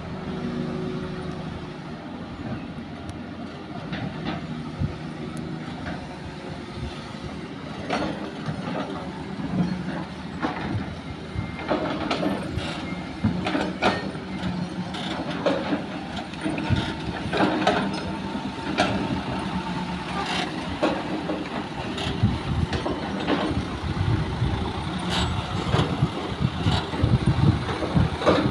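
Diesel engines of a Hitachi excavator and dump trucks running, with repeated clunks and knocks from about eight seconds in. The engine sound grows louder near the end as a loaded dump truck pulls away.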